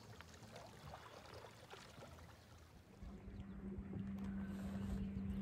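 Faint water sounds of a kayak paddled on a lake, quiet and even. About three seconds in, a louder low rumble with a steady low hum takes over.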